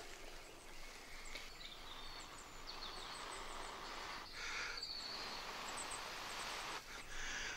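A person blowing hard on a smouldering tinder bundle to coax it into flame, with two strong breaths about halfway and near the end, over a steady outdoor hiss with faint bird chirps.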